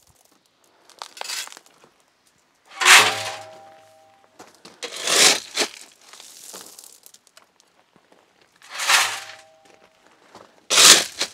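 Steel shovel scooping gravel from a pile: five separate crunching scrapes a few seconds apart, two of them followed by a brief metallic ring.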